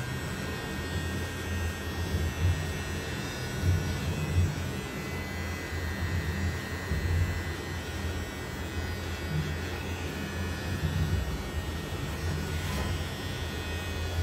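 Cordless electric hair clipper running with a steady low buzz as it cuts a man's hair short, its loudness rising and falling a little as the blades work through the hair.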